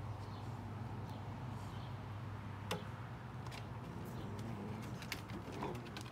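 Scattered clicks and taps of dog claws and paws on a wooden deck as a golden retriever and a golden retriever puppy tug on a rope toy, the sharpest tap about two and a half seconds in, over a steady low hum.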